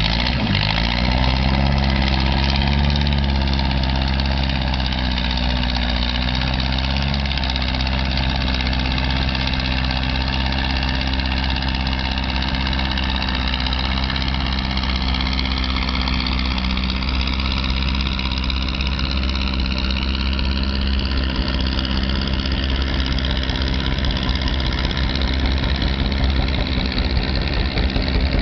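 Vintage Ford farm tractor's engine running hard under load while dragging a block-loaded sled in a tractor pull. Its note dips at the start and recovers within a couple of seconds, then holds steady as the tractor pulls.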